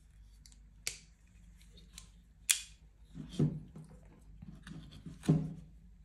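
Leatherman Rebar's plain knife blade cutting through thin cord, with two sharp snips about a second and a half apart, then duller handling knocks.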